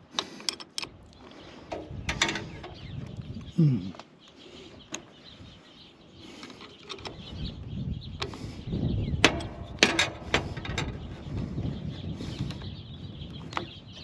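Hand wrench clicking and clinking on a riding mower's battery terminal bolt as the cable is reconnected and the nut tightened, with scattered metal clicks and scrapes. A single short, low falling sound about four seconds in is the loudest thing.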